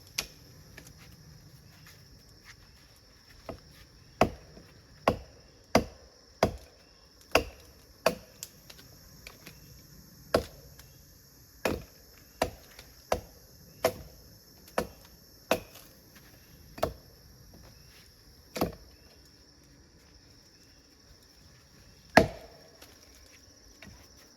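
A blade chopping into wood in a steady series of sharp strokes, about one every three-quarters of a second, with a pause and then one last loud chop near the end. Insects, crickets or cicadas, drone steadily and high-pitched underneath.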